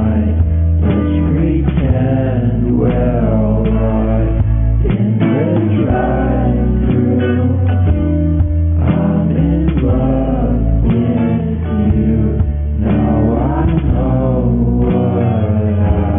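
Music with a wavering melody over long held bass notes that change about every second or two.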